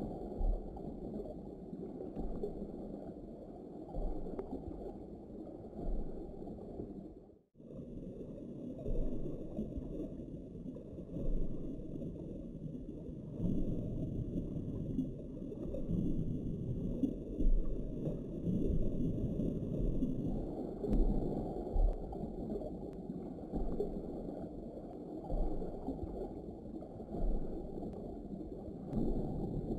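Muffled underwater rumble and water noise picked up by a camera in a waterproof housing, swelling and easing irregularly with occasional low thumps. It briefly drops out about a quarter of the way through.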